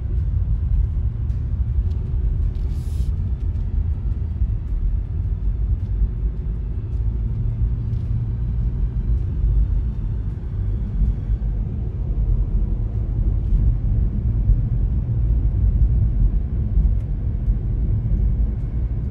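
MG Hector SUV driving along a road, a steady low rumble of road and engine noise.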